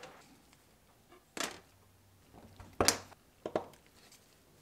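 Three short, sharp clicks and taps, the loudest about halfway through, from working lead hobby came and stained glass pieces on a wooden workboard: cutters snipping the soft lead strip and glass being handled against it.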